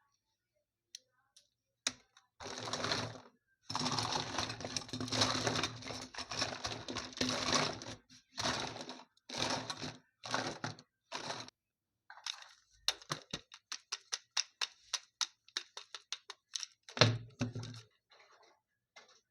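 Packaging being handled and opened: several long rustling, scraping stretches, then a quick run of small clicks and cracks.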